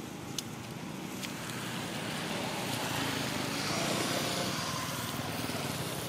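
A motor vehicle engine running steadily, swelling to its loudest about four seconds in and then easing off, as if passing by. A sharp click sounds near the start.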